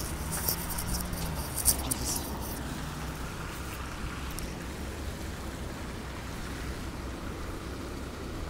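Street traffic on a wet, slushy road: a car drives past over a steady low engine rumble. Crackly rustling noise fills the first couple of seconds, then stops.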